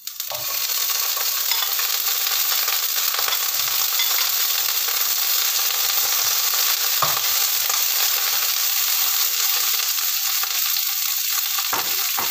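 Steamed green beans dropped into hot oil in a nonstick frying pan: the sizzling starts abruptly as they go in and then holds steady and loud. A spatula knocks against the pan a couple of times while stirring.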